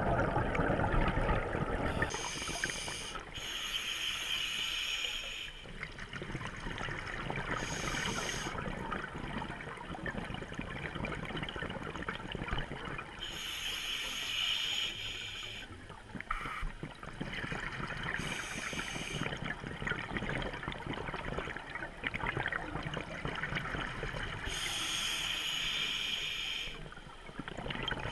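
A scuba diver's regulator breathing underwater: bursts of hissing and bubbling about every five seconds, over a steady rush of water noise.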